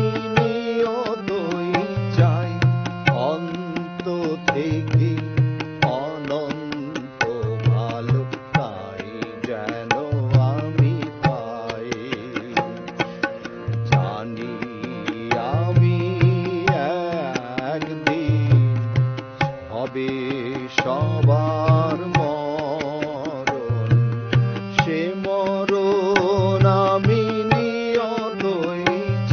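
Music from a Bengali song: a melody with vibrato over a regular low drum beat.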